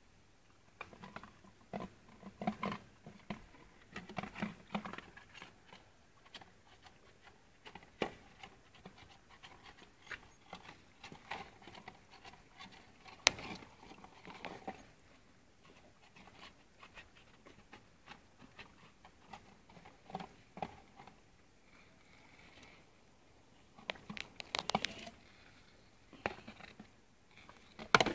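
A dog eating chicken: irregular chewing and crunching, with scattered clicks and taps and a louder cluster of them near the end.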